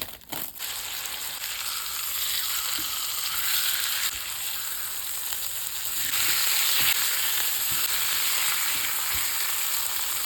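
Steak frying in a hot pan: a steady, loud sizzle with a few small pops.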